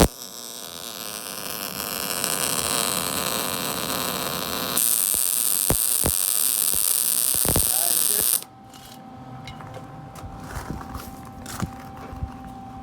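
MIG welder arc sizzling steadily as a weld bead is dragged along the joint, growing louder about halfway through and cutting off suddenly after about eight seconds as the trigger is let go. A steady hum with a few light clicks follows.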